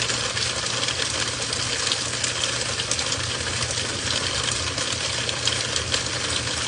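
Heavy rain falling steadily, a dense patter of drops, with a low steady hum underneath.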